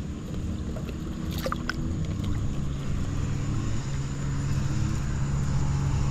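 Steady low engine drone that grows slowly louder, with a few light clicks about one and a half seconds in.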